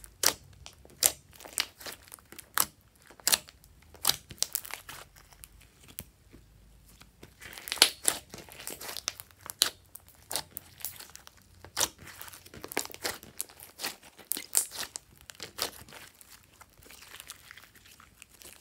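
Glossy slime being squeezed and kneaded by hand: irregular sharp clicks and crackles as pockets of trapped air pop, with the loudest pops about eight seconds in and fewer near the end.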